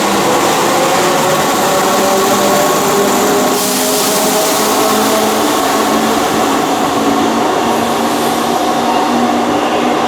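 Keihan electric train's traction motors whining, the pitch slowly rising as the train picks up speed, over the rumble of the cars. A hiss starts abruptly about three and a half seconds in and fades a few seconds later.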